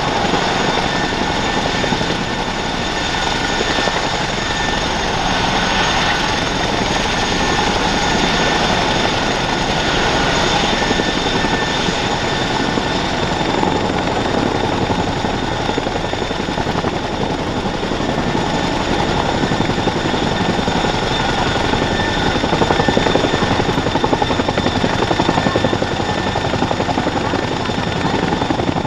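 Boeing CH-47F Chinook tandem-rotor helicopter running at full power on the ground: loud, steady rotor noise over the high, steady whine of its twin T55 turboshaft engines, growing a little louder in the last third as it starts to lift off.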